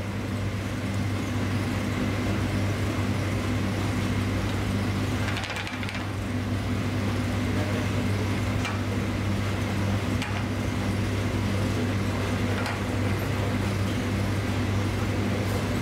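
Steady low machine hum with an even hiss over it, and a few faint light clicks.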